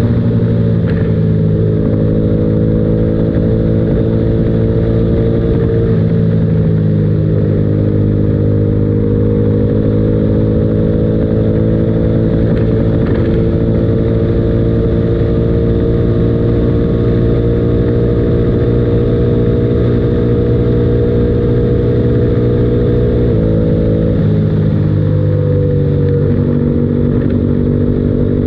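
Honda CRF1000L Africa Twin's parallel-twin engine running hard in sixth gear at around 190 km/h, a steady drone. Its pitch dips briefly about six seconds in and drops twice near the end as the throttle eases and the speed falls.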